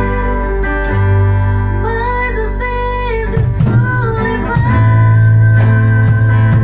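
A band playing: sustained keyboard chords and guitar with a singing voice, over drum and cymbal strikes.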